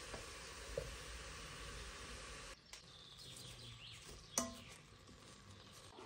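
Grated carrots sizzling in a pot with a steady frying hiss as they are stirred with a wooden spatula. About two and a half seconds in the hiss stops abruptly, leaving a quieter background with faint bird chirps and one sharp click.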